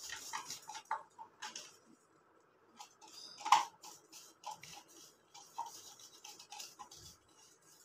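Wooden stick stirring and scraping a gritty mix of salt and toothpaste inside a plastic cup: a run of irregular scrapes and taps, with one louder scrape about three and a half seconds in.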